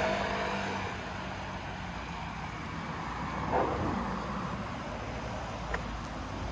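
Street traffic: a car's engine running as it passes, fading away in the first couple of seconds, over a steady urban hum. A short, sharp sound stands out about three and a half seconds in.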